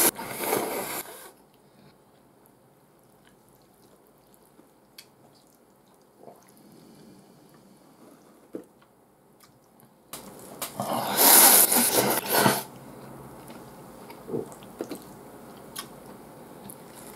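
A man slurping ramen noodles: a loud slurp tails off about a second in, and a second long slurp runs from about ten seconds in for some two and a half seconds. Between them come soft chewing and small wet mouth clicks.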